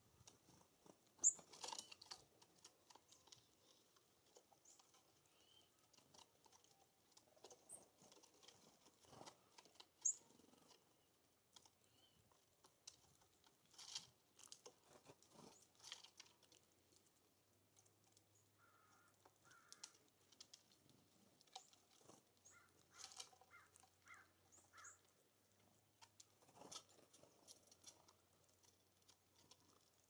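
Small songbirds at a bird feeder: quiet, scattered taps and clicks of birds pecking and cracking seed, with a few brief, high chirps, the sharpest about a second in and about ten seconds in.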